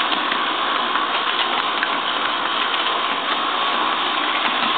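Model electric train's motor and gears whirring steadily, with faint clicks from the wheels running over the track, heard from a camera riding on the train.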